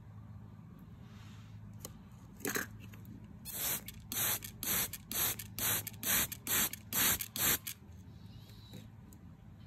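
Hand-held trigger spray bottle misting water: one squirt, then about nine quick squirts in a row, roughly two a second, each a short hiss.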